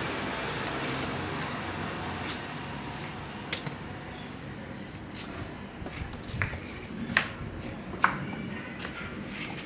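Scattered sharp clicks and knocks, some metallic, over a steady background hum, growing more frequent after about three seconds.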